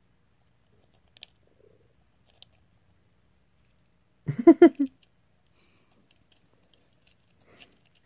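A few faint ticks from a golden hamster nibbling at its food. About four seconds in comes a person's brief voiced exclamation, the loudest sound.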